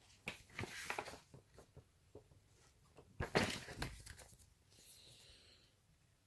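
Plastic snack packet crinkling and tearing as it is handled and opened, in two spells of rustles and clicks, the louder one about three seconds in.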